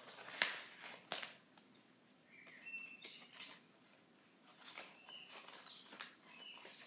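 Faint rustling and crackling of polymer banknotes and clear plastic zip pouches being handled, with a few sharp crinkles early on. Faint, short bird chirps are heard several times in the background.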